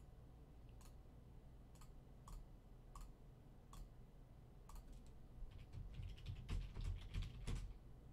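Faint computer mouse clicks, single and about a second apart, then a quick run of typing on a computer keyboard from about five and a half seconds in.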